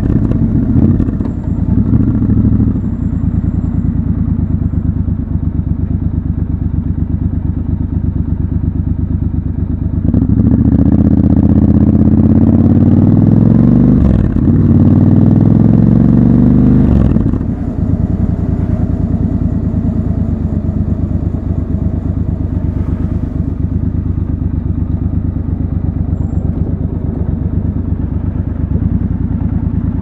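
Triumph Scrambler 1200 XC's parallel-twin engine under way: running at low revs, then about ten seconds in it revs up hard under acceleration, shifts up once and pulls again, and the throttle closes a few seconds later. After that it runs steadily at low revs.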